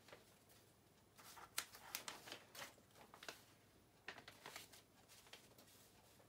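Faint rustling of paper sheets being handled and turned: a scatter of short, crisp rustles.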